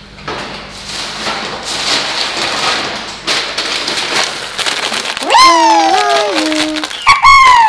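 Small hard-shelled candies pattering and clattering into a glass bowl for about five seconds, a rain-like sound. After that, twice, a cartoon-like sound effect of sliding whistle tones that sweep up and then down.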